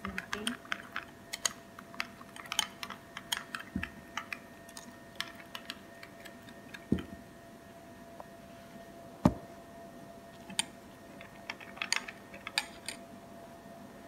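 Metal spoon stirring in a ceramic bowl, clicking and scraping against its sides in quick, irregular taps, with a few heavier knocks and one sharp, loud knock about nine seconds in.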